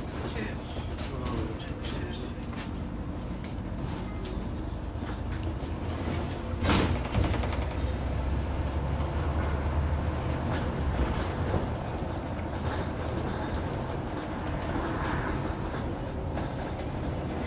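Ride noise on the upper deck of a Scania N94UD double-decker bus under way: the diesel engine's steady low drone with scattered light ticks from the body, and one sharp knock about seven seconds in. The engine works harder for a few seconds after the knock.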